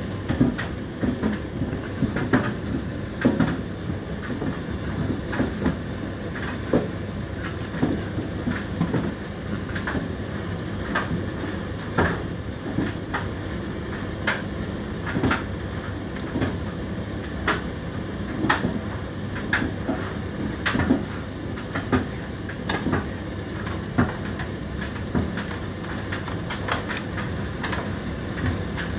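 Indesit IDC8T3 condenser tumble dryer running mid-cycle: a steady motor and drum hum with irregular knocks from the load tumbling in the drum.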